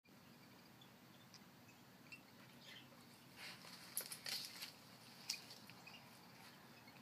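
Faint crackling and rustling of leaves as a dog chews and tears at plant leaves. A cluster of louder crackles comes around the middle, and a single sharp snap follows a little later.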